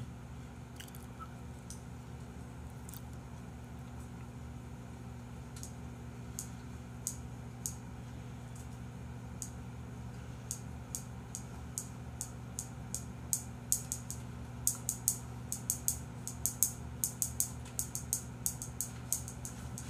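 Short, sharp little clicks, a few scattered at first and then coming several a second in irregular clusters from about halfway through, over a steady low electrical hum.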